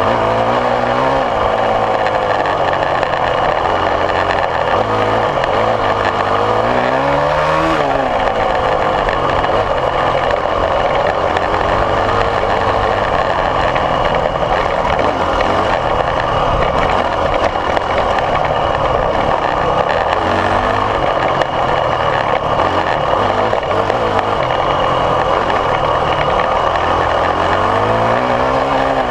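Dirt bike engines running continuously, with the revs rising about seven seconds in and again near the end.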